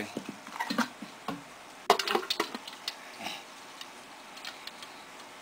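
Light clicks and knocks of a container being handled, several in quick succession about two seconds in, then quiet background for the last two seconds.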